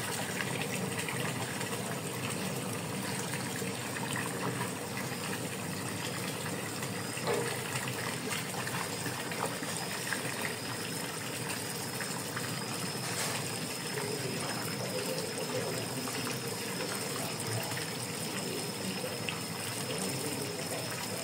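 Water from a garden hose pouring into a plastic basin, a steady gushing stream as the basin fills.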